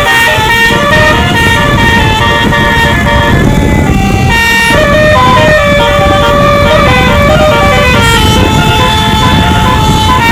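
A bus's 'telolet basuri' musical horn plays a tune, several pitched tones sounding together and stepping from note to note. A steady low rumble lies underneath.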